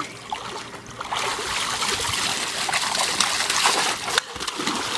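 Pool water splashing as a swimmer dives under. From about a second in comes a steady splash of water from a bucket poured over his head, which stops suddenly about four seconds in.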